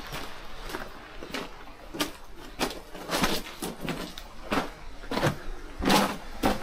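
Footsteps crunching and scuffing on rough ground, irregular at about two steps a second.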